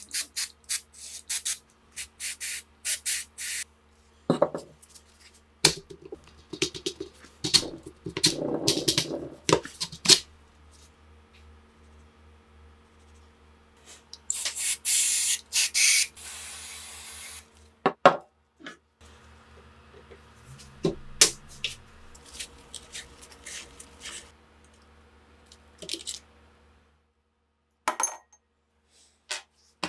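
WD-40 aerosol can spraying onto rusty metal: a run of short squirts, then one longer spray of about three seconds, with scattered clicks and taps of metal parts being handled. Near the end a small part drops into a drinking glass with a clink. A faint low hum runs underneath.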